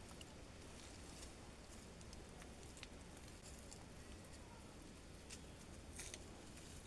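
Near silence: faint outdoor ambience with a few scattered soft clicks and crackles, the clearest a little after six seconds in.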